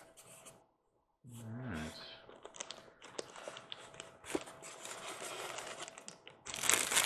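A clear plastic bag crinkling and rustling while a bagged model caboose is pulled from its styrofoam packaging, with small clicks and scrapes of foam. It starts about a second in and grows louder near the end.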